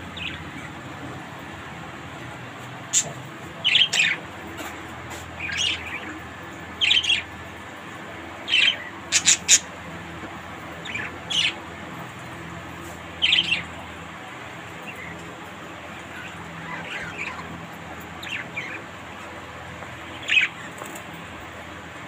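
Budgerigars giving short, high chirps and squawks, one every second or two, with a few quick double calls, over a faint steady hum.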